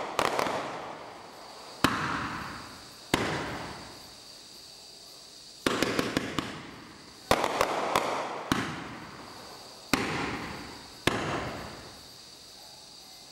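Bright Star 2397 War Machine firework barrage (a multi-shot cake) firing: sharp bangs of bursting shells every second or two, each followed by a fading crackle of glitter. The volleys stop a couple of seconds before the end.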